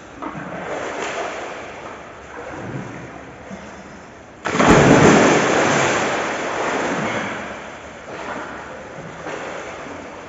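Pool water splashing and sloshing as swimmers move about, with a sudden loud rush of noise about halfway through that fades over a second or two.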